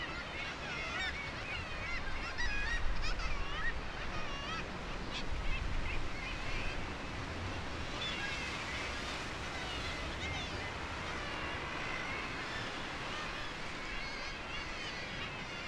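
Seabird colony: many birds calling over one another in a continuous chorus of short wavering calls, busiest a few seconds in, with a low rumble underneath.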